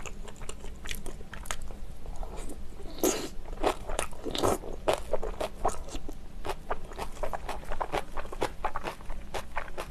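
Close-miked chewing of a mouthful of cabbage kimchi with curry rice: a steady run of small crunches and mouth clicks, several a second.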